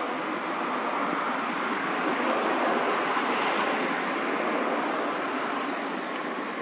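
Steady rushing outdoor background noise, even and unbroken, with no distinct events standing out.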